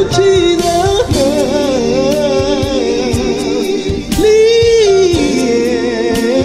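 Gospel song: a singer holds long, wavering notes and sings runs without clear words over a band with a steady drum beat.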